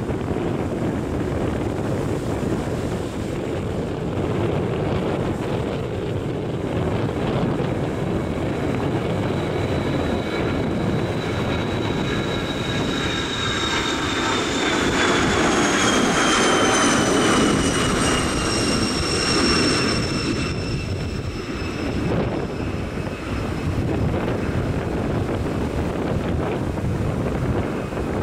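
Bombardier Challenger business jet's two rear-mounted turbofan engines at takeoff power: steady jet noise that builds and is loudest a little past halfway through as the jet lifts off and passes, then eases as it climbs away. High turbine whines slide down in pitch as it goes by.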